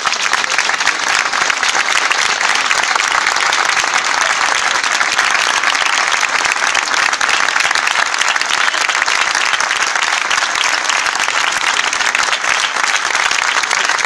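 Crowd applauding with steady, loud, dense clapping.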